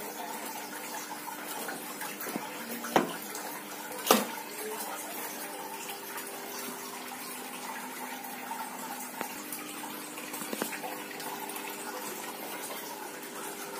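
Steady hiss in the background, with a few handling clicks and knocks from a circular saw's plastic and metal housing being turned over by hand. The two loudest clicks come about 3 and 4 seconds in. The saw is not running.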